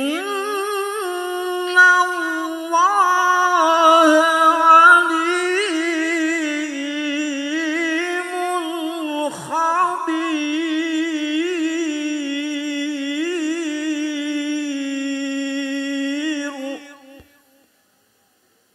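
A man reciting the Quran in the melodic tilawah style into a handheld microphone. He draws out one long phrase with vibrato and ornamental turns and fades out about seventeen seconds in.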